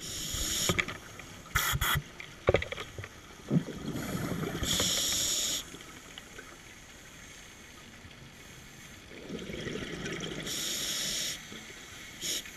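Scuba regulator breathing heard underwater: three hissing inhales about five seconds apart, with bubbling exhales between them. A few sharp knocks come through as well, twice in the first three seconds and once near the end.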